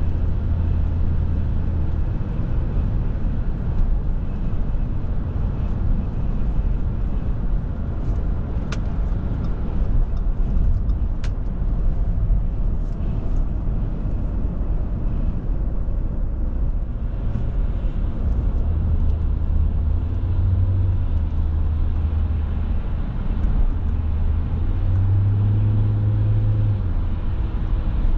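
Interior cabin sound of a 2008 Audi A6 C6 with a 2.4-litre V6 petrol engine at motorway speed: a steady low engine drone under tyre and road noise. The drone rises a little in pitch near the end as the car pulls harder.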